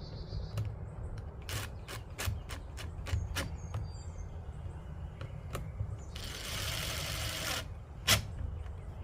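Irregular clicks and knocks of door-lock hardware being handled and fitted on a steel door, the loudest knock about eight seconds in. A hissing noise lasts about a second and a half, just past the middle.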